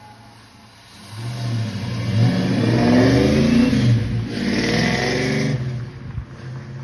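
A 1991 Ford Mustang's 5.0 V8 starts up and is revved, its pitch rising and falling, then it settles to a steadier idle near the end.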